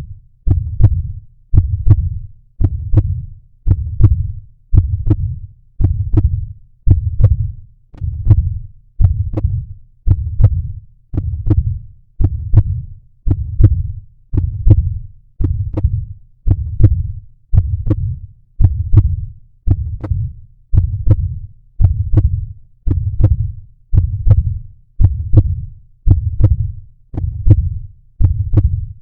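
Heartbeat: a steady lub-dub about once a second, each beat a close pair of deep thumps.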